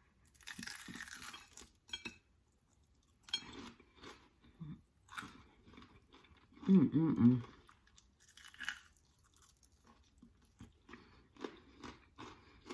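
Close-up crunching and chewing of a crispy Southern fried chicken wing: a noisy crunch near the start, then scattered crackly chews. A hummed "mm-mm-mm" of enjoyment comes about seven seconds in.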